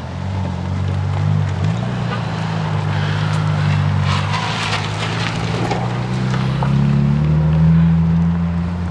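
A vehicle engine idling with a low, steady hum whose pitch shifts slightly a couple of times, and a hiss of noise in the middle.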